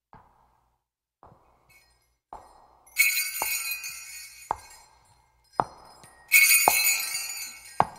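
Bells rung in a slow, steady beat, one sharp strike about once a second, with two bursts of bright jingling in the second half. This is the opening accompaniment to a magouta, a packhorse driver's song.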